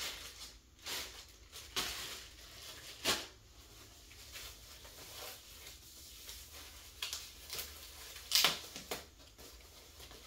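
Plastic packaging crinkling and parts being handled as drum-kit accessories are unbagged: short scattered rustles and light knocks, the loudest about eight seconds in.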